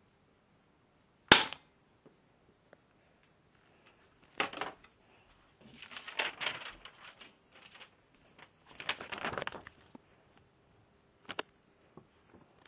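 A BB gun fires once: a single sharp crack about a second in, the loudest sound here. Then come several stretches of rustling handling noise and a few small clicks.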